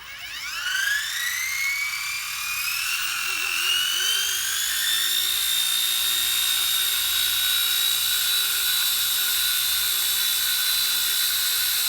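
XK K124 RC helicopter's electric motors spooling up: a high whine that climbs in pitch over the first five seconds or so as the rotor comes up to speed, then holds a steady pitch.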